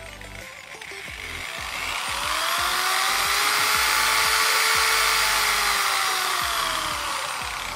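Corded electric hand drill's motor running on a dimmer speed controller, spinning up from slow to near full speed and then back down as the dimmer knob is turned: a whine that rises in pitch and loudness, holds for a couple of seconds, then falls.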